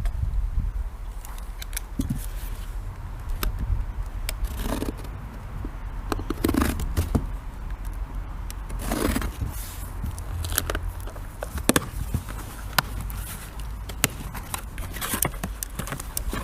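Cardboard box and packing material being handled and opened by hand: irregular scraping, rustling and sharp clicks as parts are unwrapped, over a steady low hum.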